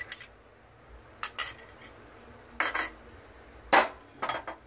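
A handful of sharp clinks and knocks of a glass jar and kitchenware against a surgical-steel pot as ghee goes in, the loudest near the end.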